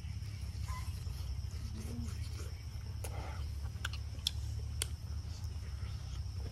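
Mouth sounds of eating roast chicken by hand: chewing with several sharp wet smacks about three to five seconds in. Insects buzz steadily in the background over a low rumble.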